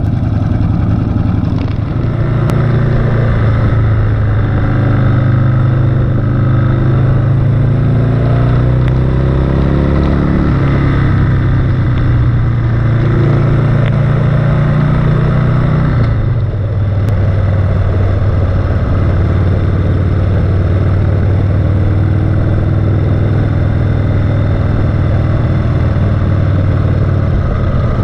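Harley-Davidson V-twin engine running on the move, heard from the bike itself. Its pitch rises as it accelerates about eight to ten seconds in, eases off briefly around sixteen seconds in, then holds steady.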